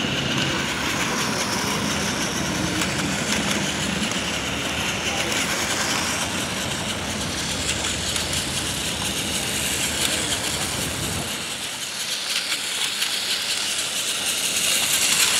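A battery-powered Plarail toy train runs around its plastic track, its small motor running and its wheels rattling over the track joints. This sits over steady outdoor background noise that thins about eleven seconds in.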